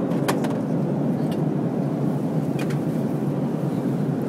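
Steady airliner cabin noise in flight, the low rush of the jet engines and airflow, with a few light clicks near the start and about two-thirds of the way through.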